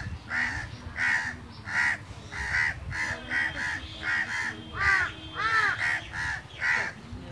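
A gathering of house crows cawing over and over, short harsh caws about two a second, several birds overlapping.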